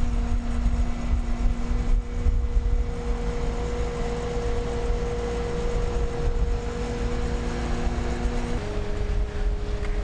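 Bobcat skid-steer loader running steadily while working a concrete mixer attachment, with a low rumble and a steady hum that shifts suddenly to a different pitch near the end.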